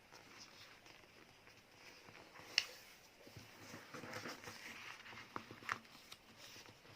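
Sheet of paper rustling and crinkling as it is folded and creased by hand, with a few sharp crackles, the clearest about two and a half seconds in.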